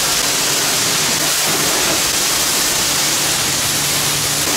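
Car-wash high-pressure washer spraying a loud, steady hiss of water, with a faint low steady hum under it.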